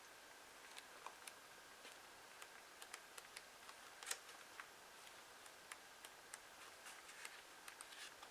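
Paper and book pages being handled: faint, irregular small clicks and ticks, with one sharper tick about four seconds in.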